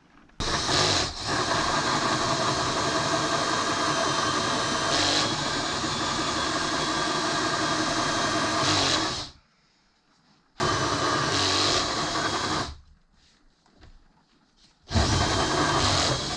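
Electric drill running under load in three bursts, cutting a hole in the van's roof panel for a recessed light. The first burst lasts about nine seconds, followed by two shorter runs of about two seconds each.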